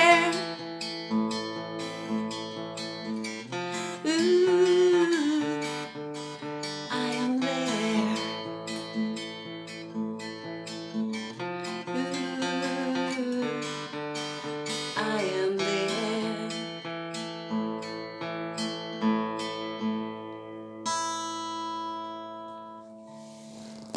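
Acoustic guitar playing the closing chords of a song, ending on a last ringing chord near the end that fades away.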